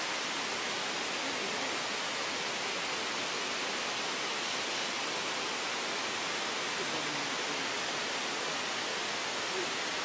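Steady, even hiss of outdoor background noise, strongest in the upper range and unchanging, with no distinct events.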